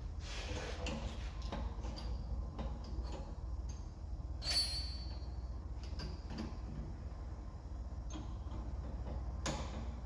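Small metallic clicks and knocks of hands working at a drill press chuck, with one sharper ringing metal clink about four and a half seconds in and another knock near the end, over a steady low hum.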